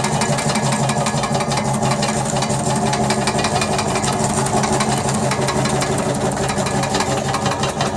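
Powered floor-removal machine (floor scraper) running steadily, with an even hum and a fast, continuous rattle of vibration.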